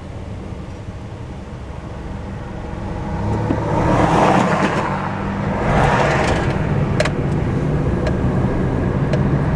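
Car engine and road noise heard from inside the cabin while driving, getting louder about three seconds in as the car gathers speed. Oncoming cars rush past about twice, and there is a single sharp click near the end.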